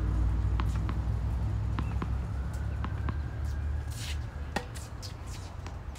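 Tennis ball bounced several times on a hard court, then a racket striking the ball about four and a half seconds in, as sharp separate clicks over a low background rumble that fades.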